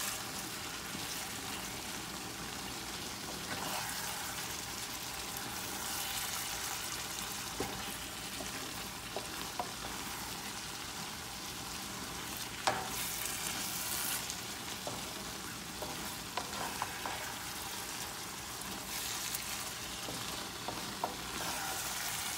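Eggplant and minced chicken adobo sizzling in a pan while a wooden spoon stirs it, with scattered clicks and scrapes of the spoon against the pan, one sharper knock about halfway through.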